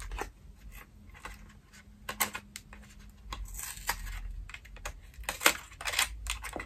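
Irregular light clicks, taps and rustles of a small cosmetics box being handled and searched: the packaging of a lip liner pencil, with a small pencil sharpener loose inside. A few sharper clicks stand out about two seconds in and again near the end.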